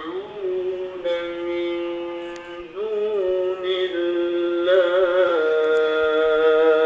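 Recorded male Quran recitation: one voice chants in long, drawn-out held notes, with a wavering, ornamented run partway through, then settles on a higher held note that is the loudest part. Nothing is heard above about 4 kHz.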